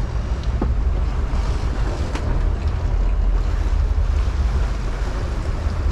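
Wind buffeting the microphone in a steady low rumble, over the wash of open-ocean waves and the churn of water around the stern of a sportfishing boat.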